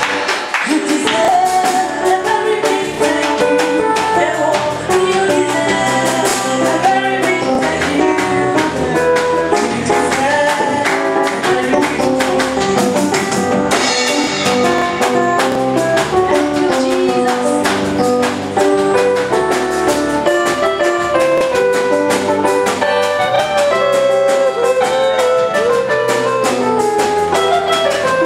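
Live band music with a drum kit and a played melody line, running steadily.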